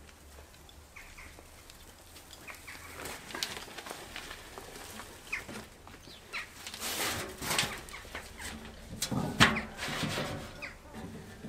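Wheelbarrow load of soil being tipped onto a heap: the soil slides and pours out of the tray with scraping and rustling, and the barrow knocks once sharply about nine seconds in, the loudest sound. Faint bird chirps come before the tipping starts.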